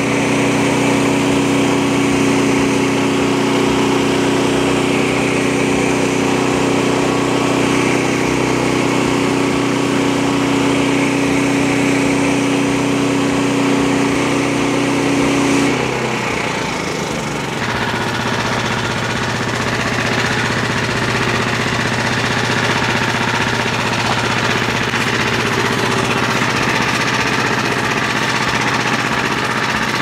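The Frontier OS23 sawmill's 10 hp Briggs & Stratton engine runs steadily as the band blade saws through a black cherry log. About halfway through, the engine note drops and settles lower, and the machine keeps running.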